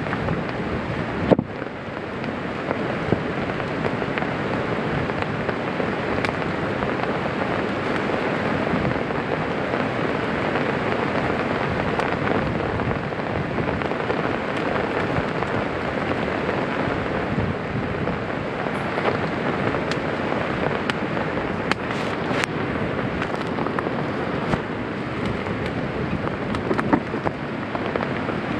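Steady rain and wind, with one sharp knock about a second in and a few light clicks around twenty seconds in.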